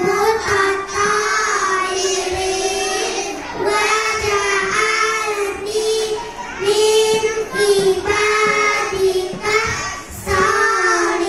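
A group of young kindergarten children singing a song together, one melody line carried in unison in short phrases.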